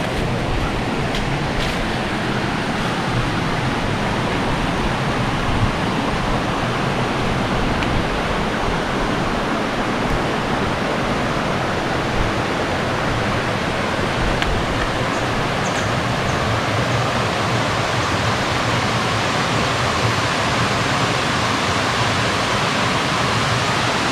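Steady rush of a rocky stream flowing at the top of a waterfall: an even, unbroken noise of running water.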